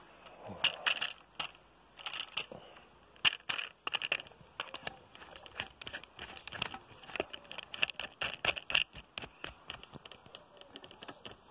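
Handling noise from a camera on a small tripod being carried, set down and adjusted: irregular clicks, knocks and crackly rustling close to the microphone.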